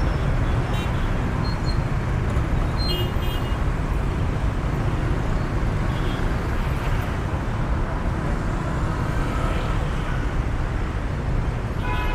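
Steady rush-hour traffic noise of many motorbikes and cars running through a busy intersection. Several short, high-pitched horn beeps sound in the first few seconds and again about six seconds in.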